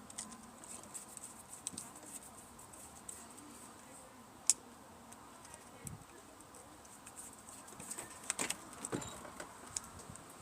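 Faint scattered clicks and light taps from small objects being handled, with one sharp click about four and a half seconds in and a few more clicks near eight seconds in.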